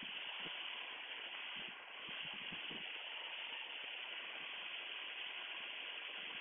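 Steady cabin noise of a Piper Comanche 250 in a cruise descent: its Lycoming six-cylinder engine, propeller and airflow heard as an even hiss through the headset intercom feed.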